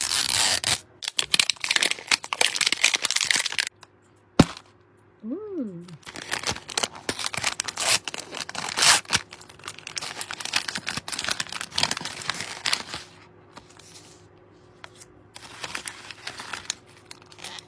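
A zippered plastic Mini Fashion toy capsule being unzipped, then thin plastic wrappers crinkling and tearing as they are pulled open, in several bursts. There is a sharp click about four seconds in.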